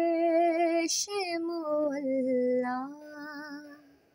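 A woman singing a naat solo, holding long wavering notes with a short break about a second in; the melody steps down in pitch and fades out near the end.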